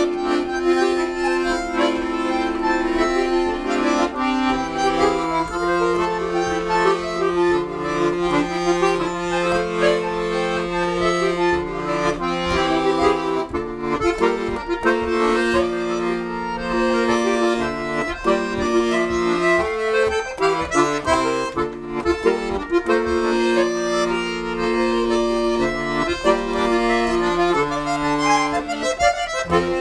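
Two button accordions playing a folk tune together live, held chords and bass notes under a moving melody line.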